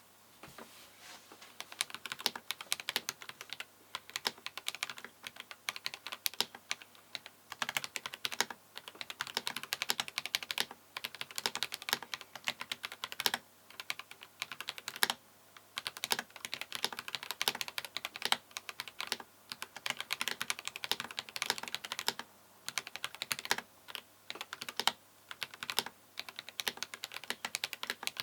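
Fast typing on a Glorious GMK Pro mechanical keyboard with Akko V3 Cream Yellow linear switches and an aluminium top plate, a clacky sound. The keystrokes come in quick runs broken by short pauses.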